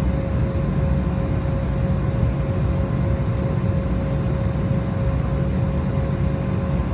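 Steady cabin noise inside an Embraer 190 airliner: a deep, even rumble of its GE CF34 turbofan engines and airflow, with a steady mid-pitched tone running through it.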